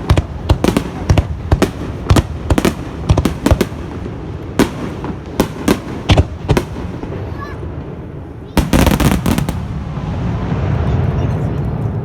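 Fireworks shells bursting close by in a rapid string of sharp bangs, several a second, thinning out after about seven seconds. A heavier blast comes about eight and a half seconds in, followed by a rising wash of noise near the end.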